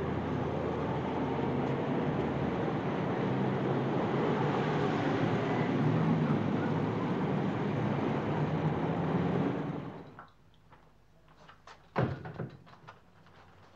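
City street traffic: a steady wash of engines and tyre noise from passing cars and buses, which cuts off suddenly about ten seconds in. A quiet room follows, with light paper rustling and one sharp knock near the end.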